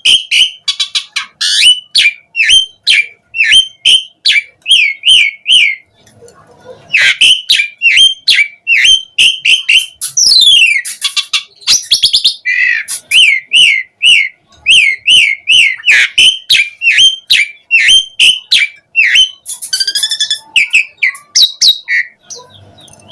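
Asian pied starling singing vigorously: a fast run of sharp, repeated whistled notes, two or three a second, broken by a short pause about six seconds in, with sweeping glides and harsher buzzy phrases mixed in.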